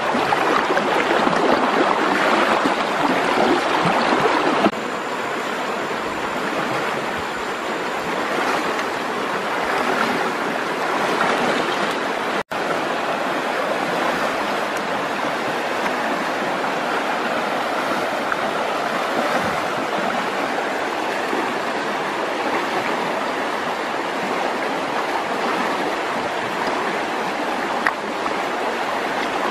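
Shallow river water rushing steadily over stones and around a wading man, louder for the first few seconds, then dropping abruptly to a steadier, softer flow. About twelve seconds in, the sound cuts out for an instant.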